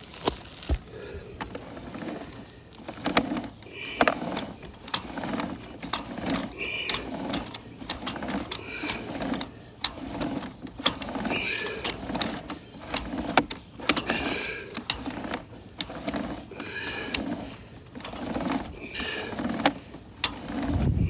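Sewer inspection camera's push cable being fed down a drain pipe: repeated sharp clicks and scraping rubs, about one a second, as the cable and camera head work along inside the pipe.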